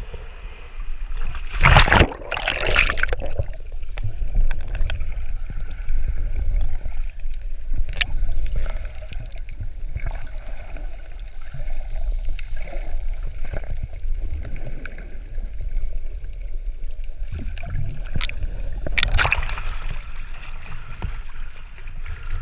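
Sea water splashing and sloshing around the camera as it dips below the surface about two seconds in. Then a muffled underwater wash, mostly low in pitch, with scattered small clicks. A second splash comes as the camera breaks the surface again near the end.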